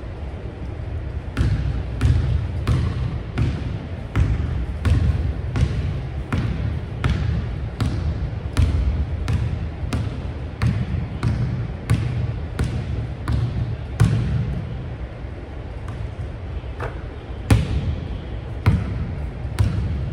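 Basketball dribbled on a hardwood gym floor, a steady run of bounces a little under two a second, with a pause a few seconds before the end and then a few more bounces. The bounces echo in the large gymnasium.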